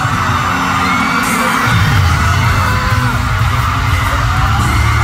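Live K-pop concert music blaring from arena speakers with a heavy bass line, singing over it and crowd voices yelling along.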